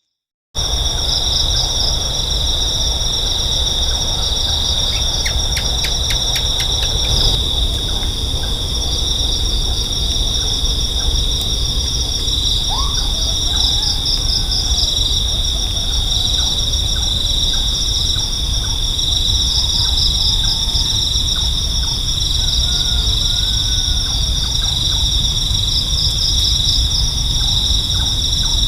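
Crickets and other insects chirring steadily in a night-time chorus, a continuous high pulsing buzz, over a constant low rumble. A quick series of clicks comes about five to seven seconds in.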